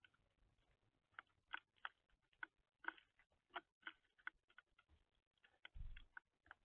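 Birds pecking and scratching at seed on a feeder: irregular sharp taps, several a second, with a low thump near the end.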